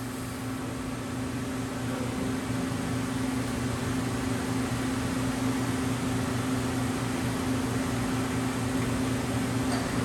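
Mori Seiki horizontal machining center running: a steady machine hum over a hiss, growing a little louder over the first few seconds.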